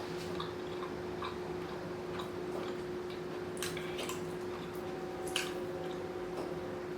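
Chewing rotisserie chicken close to the microphone: scattered soft, wet mouth clicks and smacks, a few sharper ones about three and a half and five and a half seconds in, over a faint steady hum.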